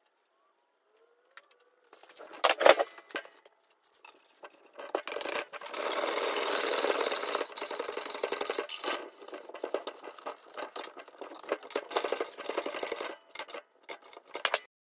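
A 3/8-inch steel bolt being forced through a drilled hole in a wooden 4x4 table leg, scraping against the wood for several seconds, then quick strokes of a wrench tightening it. A loud wooden knock comes about two and a half seconds in.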